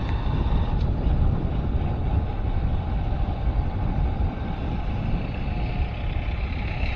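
A vehicle moving along a road, with a steady low rumble of wind buffeting the microphone and road noise.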